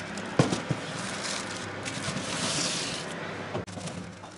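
Foil-covered metal baking tray handled at the oven door: two sharp knocks about half a second in, then scraping of the tray on the oven rack and crinkling of the aluminium foil.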